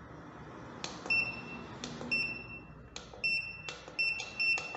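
Keypad of a Hikvision fingerprint time-attendance terminal being pressed: each button press gives a light click followed by a short, high electronic beep. There are about six beeps, starting about a second in and coming closer together near the end.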